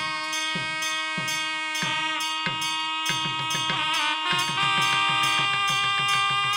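Devotional music: long held pitched tones over a drum beat, struck about every half second at first and in quicker runs of strokes from about three seconds in.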